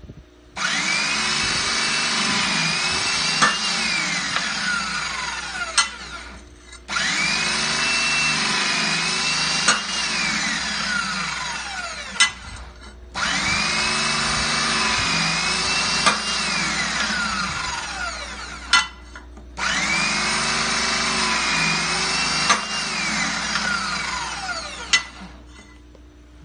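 An electric hydraulic pump driving a C-frame hydraulic hole punch through steel bar, running in four separate cycles of about five seconds each with short pauses between them, one hole per cycle. In each run the motor's whine sinks steadily in pitch toward the end, and there are sharp clicks before it stops.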